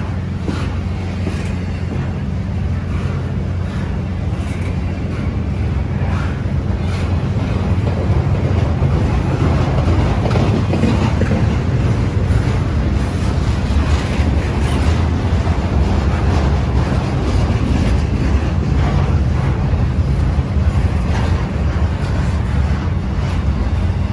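BNSF intermodal freight train rolling past at speed: a loud, steady rumble of steel wheels on the rails from trailer-carrying flatcars. It grows a little louder about a third of the way in.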